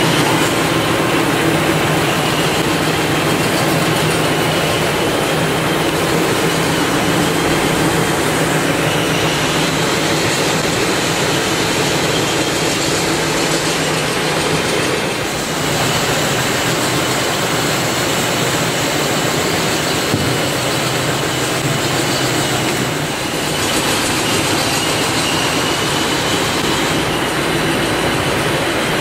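Servo-driven CNC wood rotary cutting machines (veneer peeling lathes) running, peeling thin veneer off spinning logs: a loud, steady mechanical drone with a constant hum, dipping briefly twice.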